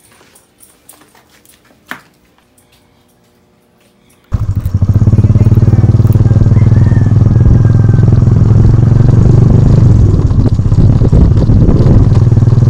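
Small motorcycle engine running loud and steady while riding. It cuts in suddenly about four seconds in, after a few seconds of near quiet broken by faint clicks and one sharp knock.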